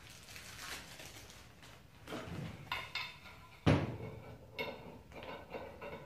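Paper and plastic packaging rustling as small metal hardware is unwrapped, then metal parts clinking and knocking with a short ringing, the loudest a sharp thump a little past halfway.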